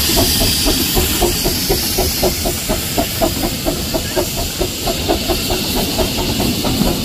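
Narrow-gauge steam locomotive Bonnie Dundee working its train of coaches, a rapid even beat of about four to five a second over a steady hiss of steam. The hiss is strongest near the start.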